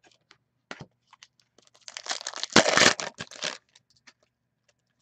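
Trading-card pack wrapper being torn open and crumpled: a dense crinkling burst of about a second and a half in the middle, with light clicks of card handling before and after it.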